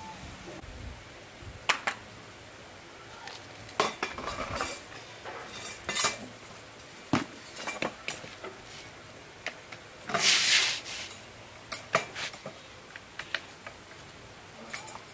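Irregular metallic clinks and knocks of tools and engine parts being handled while a brush cutter's engine is worked on by hand, with one longer rasping noise lasting under a second about ten seconds in.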